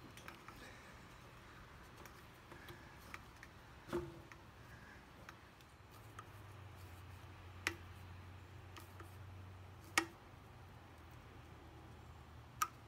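Flat-blade screwdriver working a small hose clamp on a motorcycle's rubber oil line: faint handling noise and four sharp metallic clicks a few seconds apart, over a faint low hum.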